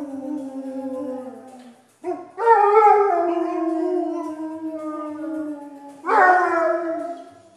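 Dog howling in long drawn-out notes, each sliding slowly down in pitch. One howl trails off, then a new one starts about two seconds in and a third about six seconds in.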